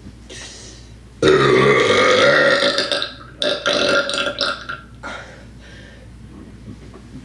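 A woman's loud, long voluntary burp starting about a second in, followed shortly by a second, shorter and choppier burp.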